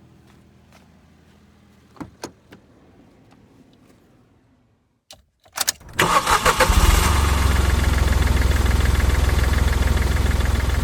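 A few sharp clicks, then about halfway through a car engine is started and settles into a steady run.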